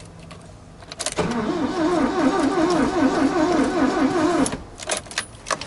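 Starter motor cranking the Ford Transit's 1.6 Sierra petrol engine for about three seconds with an even, rhythmic pulse, without it catching, then stopping, followed by a few clicks. The owner takes the no-start for the engine being flooded with gas from a frozen LPG reducer.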